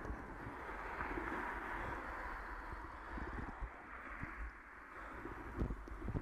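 Wind rushing and buffeting on the microphone of a bicycle-mounted camera as the bike rolls along tarmac, with a couple of short low thumps near the end.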